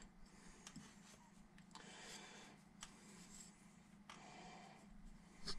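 Near silence, with a few faint clicks and taps of small metal clutch-basket parts being handled, and one slightly louder tap near the end.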